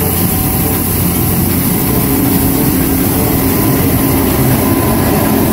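Compact street sweeper (MFH 5500) working: its engine running steadily while the rotating side brushes sweep the road, a constant mechanical drone under an even hiss.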